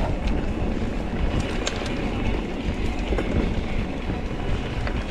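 Hardtail mountain bike ridden along a rough trail: steady rumble of wind on the microphone and tyres on the ground, with the bike rattling and a few sharp clicks.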